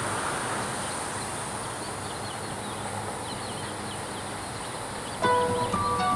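Outdoor ambience: a steady high insect drone and faint bird chirps over a noisy background. About five seconds in, plucked-string music, guitar or ukulele, comes in.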